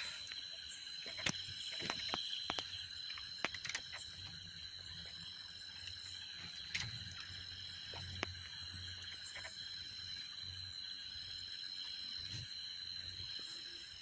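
Steady chorus of night insects, a high ringing trill. Scattered sharp clicks and knocks, most of them in the first few seconds, come from handling the net and a large fish.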